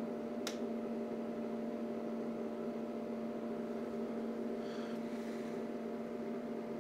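Steady electrical hum from the workbench test setup: a constant low-mid tone over a light hiss, with a single sharp click about half a second in.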